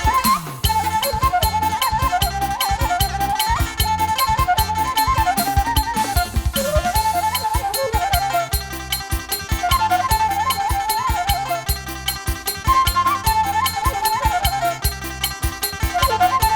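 Traditional music: a flute-like melody, wavering with quick ornamental turns, over a steady drum beat.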